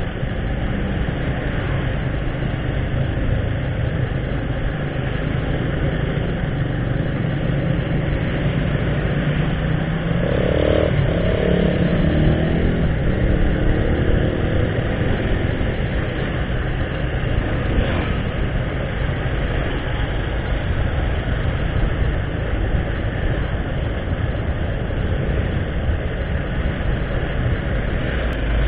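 A motorcycle running steadily on the move, heard from the bike itself, engine drone mixed with road noise. About ten seconds in, another engine's note rises and falls for a couple of seconds.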